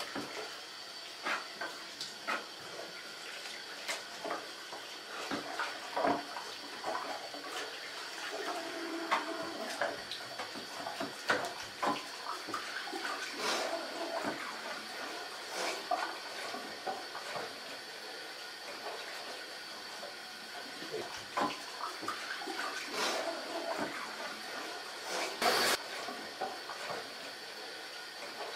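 Bathroom tap running into a sink, with irregular splashes as hands scrub in the water and bring it up to the face; the biggest splash comes near the end.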